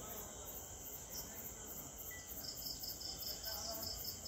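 Night insects chirping in even, rapid pulses: a very high-pitched chirp repeats steadily throughout, and from about halfway a second, faster and lower chirping joins in.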